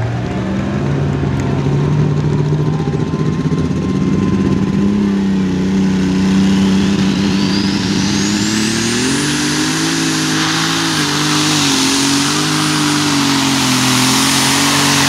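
John Deere Light Super Stock pulling tractor's engine running at the starting line while a high turbo whistle climbs steadily over a few seconds. The engine note then rises and wavers as the tractor launches and pulls, with a growing hiss of dirt and tyre noise.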